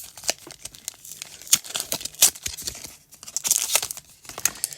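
Foil booster pack wrapper crinkling and tearing as it is handled and opened, an irregular run of sharp crackles.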